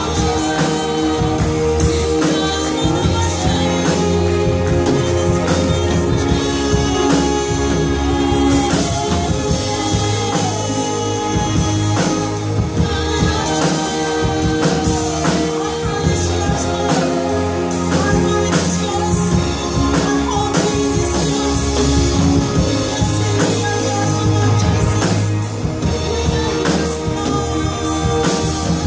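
Live worship band playing a song with sung vocals, keyboard, electric bass guitar and drum kit, the drums keeping a steady beat.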